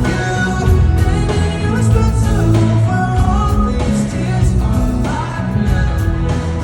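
Live pop band playing through a theater PA: drums, heavy bass and keys under a male lead voice singing a melody.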